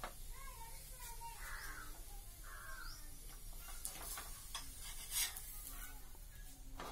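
Two faint, harsh bird calls about a second apart, then a few light clicks of a metal spatula on the pan, the loudest about five seconds in.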